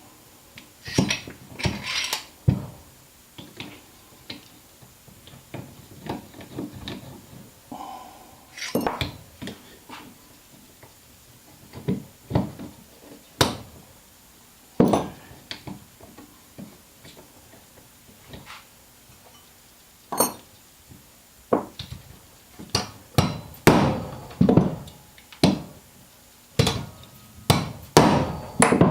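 Hand tools knocking and clinking on the metal parts of a GM NP246 transfer case selector fork assembly as a stubborn washer is worked free: irregular sharp metallic knocks, coming faster and harder in the last several seconds.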